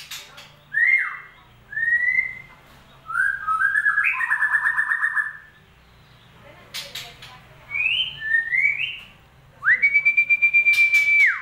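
White-rumped shama (murai batu) song played as a lure: a run of clear whistled phrases that glide up and down, a fast trill about four seconds in, a couple of sharp clicks, and a long level whistle near the end.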